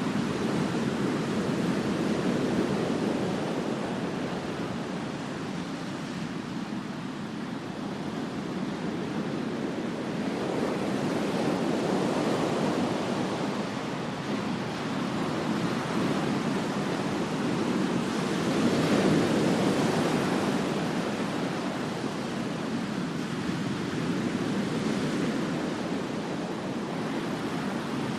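Ocean surf breaking on a beach: a continuous rushing wash of waves that swells and eases every several seconds, with louder breakers near the start, about twelve seconds in, and around nineteen seconds in.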